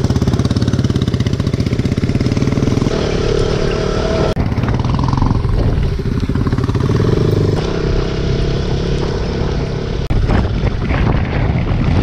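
KTM 200 Duke's single-cylinder engine running under way, with the engine note dropping briefly twice, about four and ten seconds in.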